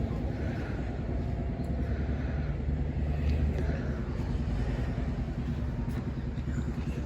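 Diesel locomotive engine running steadily at idle, a constant low drone.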